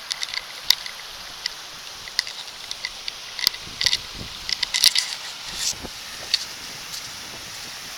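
Rustling, clicking handling noise from a handheld camera while walking over rough grass, with a few heavier thumps of footsteps in the middle, over the steady rush of a stream.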